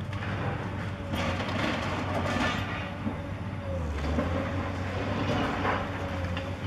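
Cat 5080 demolition excavator running with a steady low engine drone while its hydraulic crusher bites into concrete and masonry at the top of a high-rise, with crunching and falling rubble, heaviest from about a second in to nearly three seconds and again near the end. A faint squeal wavers in pitch over it.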